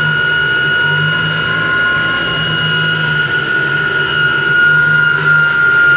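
Honda D15B7 1.5-litre engine running on an Edelbrock Thunder series four-barrel downdraft carburetor, a steady high whine over an uneven low hum, growing a little louder in the second half.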